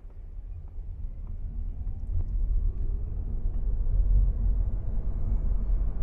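Inside the cabin of a Geely Geometry electric car pulling away from a stop: low road and tyre rumble builds over the first two or three seconds and then holds, with a faint rising motor whine.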